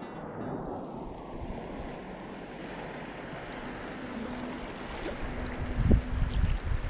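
Small waves lapping and wind blowing across the microphone, the low gusts growing stronger near the end.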